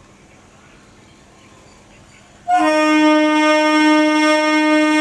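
An Indian Railways EMU local train's horn sounds one long, steady blast. It comes in suddenly about halfway through, after faint station background.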